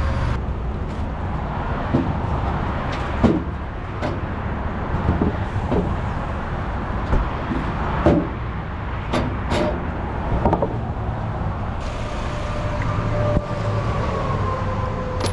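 Steady low rumble of a vehicle running, with scattered short knocks and clunks, about a dozen of them.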